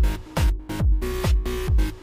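Electronic dance workout music with a steady, driving kick drum, a little over two beats a second, under sustained synth tones.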